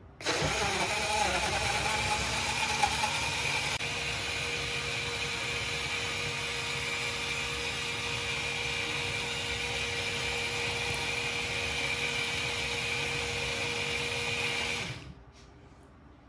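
BlendJet 2 cordless portable blender running a blending cycle on milk and fruit: it starts at the press of its button, sounds uneven for the first few seconds, then runs with a steady hum. About fifteen seconds in it cuts off suddenly, shutting itself off at the end of its automatic cycle.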